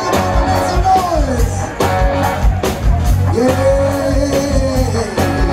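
Live band playing amplified music through a stage PA: a vocalist singing over a steady drum beat, electric guitar and bass, holding one long note in the second half.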